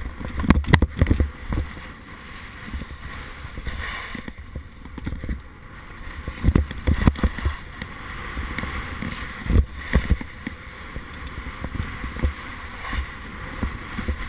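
Wind buffeting an action camera's microphone, with uneven low rumbling gusts and a few sharp knocks over a steady rushing hiss.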